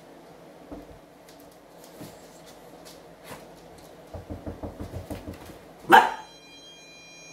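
A quick run of soft thumps, then a young dachshund gives one sharp bark about six seconds in. The non-shock anti-bark collar answers at once with a steady high electronic tone, its sound deterrent set off by the bark.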